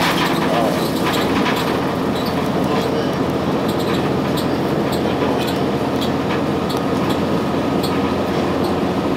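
Interior sound of a Blue Bird CS transit bus running, its Cummins ISC diesel giving a steady drone under road noise. Frequent light rattles and clicks from the cabin fittings.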